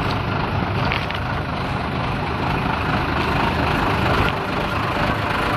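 Vehicle engine idling steadily while being warmed up, a dense even rumble.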